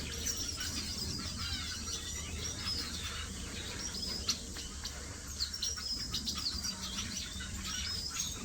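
A flock of aviary finches, Gouldian and parson finches among them, chirping and calling continuously, with many short high calls overlapping.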